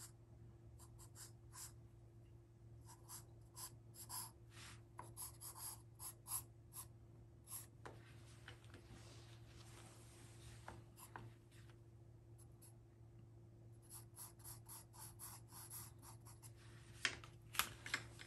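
Pencil drawing on paper, faint: many short scratching strokes, with a longer continuous stretch of rubbing strokes about eight to twelve seconds in. A faint steady low hum lies underneath.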